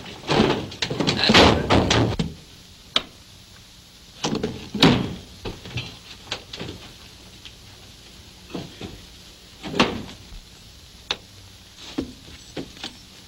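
Wooden knocks, thumps and scraping as a ceiling trapdoor into an attic is pushed open and things are moved about up there: a busy cluster of bumps and shuffling in the first two seconds, then a string of separate knocks and thuds.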